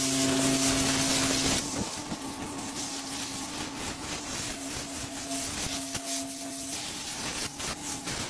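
Pressure washer jet hissing against wet concrete, over the steady hum of the washer's motor. The spray is loudest for the first second and a half, then drops to a lower hiss.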